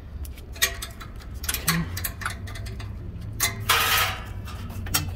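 Irregular metallic clicks of a hand wrench working a 12 mm bolt loose from a truck's PM sensor mount, with a short rasping scrape about four seconds in.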